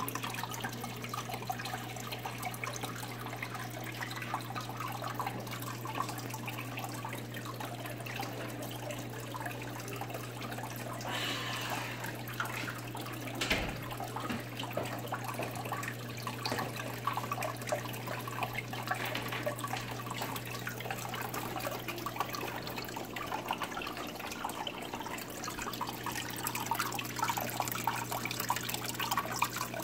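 Water trickling and splashing steadily in a paludarium's water feature, over a low steady hum. A single knock comes about thirteen seconds in.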